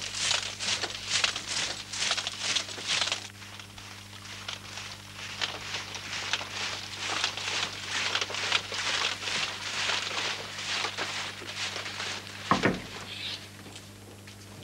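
A column of soldiers marching, a steady crisp tramp of feet about three steps a second. It turns fainter after about three seconds and dies away, with one low thud near the end and a steady low hum underneath.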